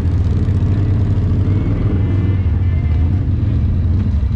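Side-by-side UTV engine running steadily at low speed, a deep even drone heard from the vehicle's own cab. Faint voices can be heard behind it in the middle.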